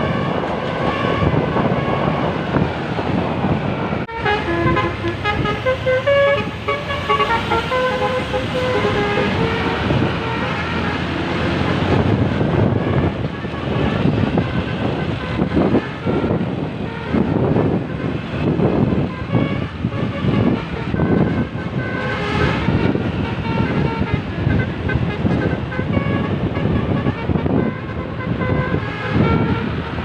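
An Indonesian coach bus's telolet basuri multi-tone horn playing a tune of stepped notes, clearest from about four seconds in for several seconds, with fainter notes later. Road and traffic noise runs under it.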